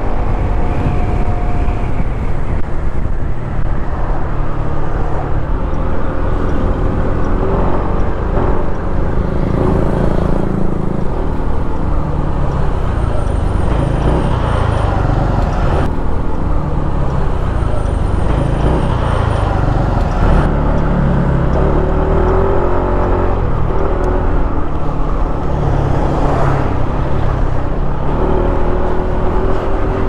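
Kymco KRV 180 scooter's single-cylinder engine running on the road, its pitch rising and falling as the throttle changes, over steady road noise.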